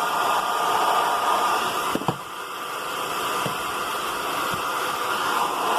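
Hand-held hair dryer blowing steadily on high, heat-shrinking a plastic sleeve onto a remote control. The noise dips briefly about two seconds in, with a few small clicks.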